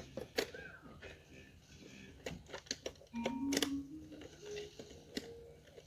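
Plastic toy pieces being handled, giving a run of irregular sharp clicks and taps. A short low tone rises about three seconds in.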